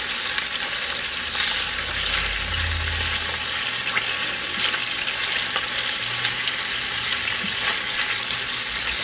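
Chicken pieces frying in hot olive oil in a non-stick pan as they brown: a steady sizzle with small scattered pops.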